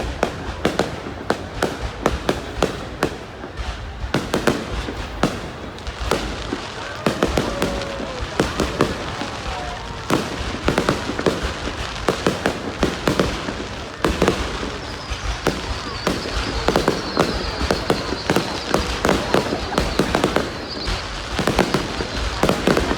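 Aerial fireworks going off in a dense, continuous barrage of overlapping bangs and crackles, with crowd voices underneath.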